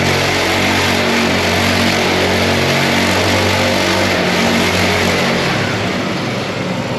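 Mini bike's small engine running under way, a steady note that drops and eases off about five and a half seconds in.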